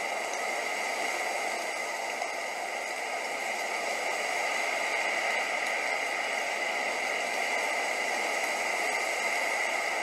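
Steady rainfall, an even hiss of rain with no thunder, growing a little louder about four seconds in.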